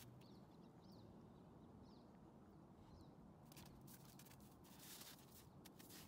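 Near silence with faint small-bird chirps in the first few seconds, then a run of soft crunches about three and a half to five seconds in from an English bulldog pawing and nosing in crusty old snow.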